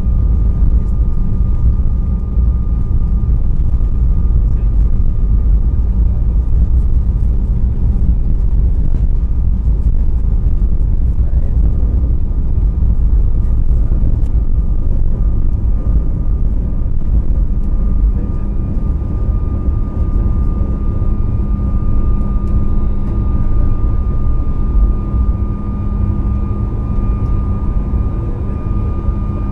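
Cabin sound of a Boeing 737 MAX on its takeoff roll and liftoff: the CFM LEAP-1B engines at takeoff thrust give a steady high whine over a heavy runway rumble, and the rumble eases a little once the wheels leave the ground a little over halfway through.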